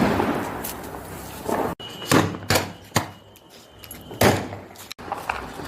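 Diwali firecrackers going off: a loud bang fading out at the start, then a string of about five more bangs spaced roughly half a second apart, with a thin whistle under the middle ones.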